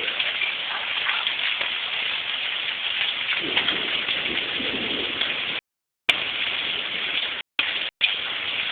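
Heavy rain falling steadily, a dense even hiss of drops on surfaces. The sound cuts out for about half a second a little over halfway through, and twice more briefly near the end.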